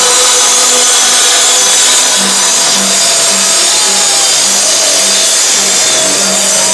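A live band with guitar, keyboards and drums playing loudly, with a low pulse about twice a second. The sound is harsh and distorted, as an overloaded recording from the crowd.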